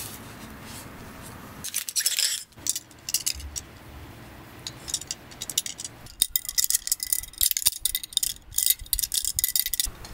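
Light metal clinking and rattling as sections of a thin aluminium camping pole are handled and fitted together, a few clicks at first, then a dense run of clinks over the last few seconds.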